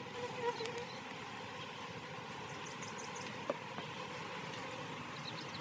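Steady hum of honeybees around an opened hive, with a bee passing close in the first second. A single sharp click comes about three and a half seconds in, and quick series of short high chirps sound near the middle and at the end.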